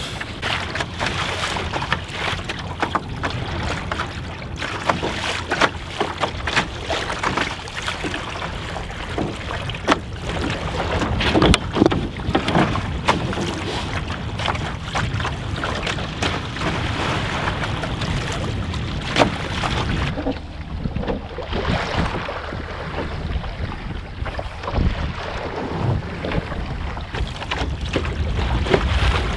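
Wind buffeting the microphone over choppy water slapping and splashing against the hull of a small cedar strip sailing canoe under way.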